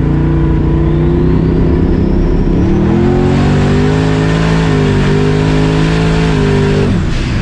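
Boosted street race truck making a full-throttle pass. The engine runs hard, its pitch dipping and climbing again about three seconds in, and it cuts off about seven seconds in as the driver lifts.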